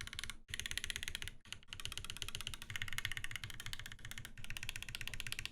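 Fast typing on an Aeboards Constellation 65 custom mechanical keyboard, top-mounted with a brass plate and fitted with Durock linear switches lubed with 205g0: a rapid, dense clatter of keystrokes with a few brief pauses. The builder finds it sounds really good.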